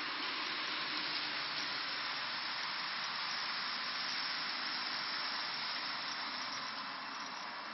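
Steady hiss-like running noise of a TT-scale model train rolling along the track.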